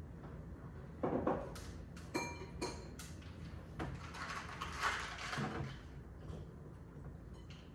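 Clicks, knocks and rustling of something being handled, with a brief ringing tone about two seconds in.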